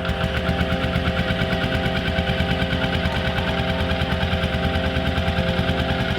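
Small petrol engine running at a steady pace with a rapid, even pulsing, as a small off-road vehicle is driven along a woodland trail.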